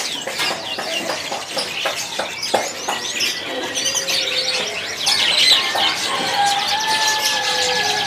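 Many caged domestic canaries chirping and twittering over one another, with quick wing flutters and small clicks and knocks as they hop about the perches.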